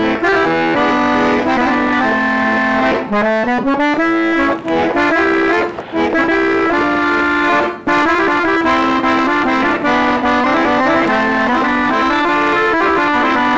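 A button accordion plays a melody over held chords, with a quick run of notes about three seconds in and two brief breaks in the sound a little later.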